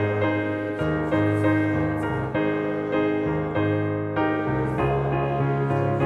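Piano playing a slow piece in full chords, a new chord struck about every half second to second and left to ring.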